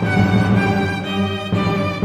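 Background music of held notes, changing about every half second.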